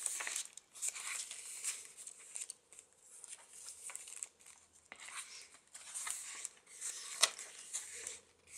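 Paper pages of a chunky handmade junk journal rustling and crinkling as they are turned and handled, in a string of short rustles with a sharp tick about seven seconds in.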